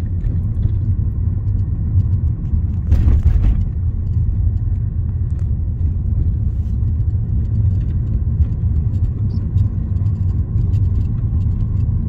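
Steady low rumble of a car driving slowly on a residential road, heard from inside the cabin, with a short hissing rustle about three seconds in.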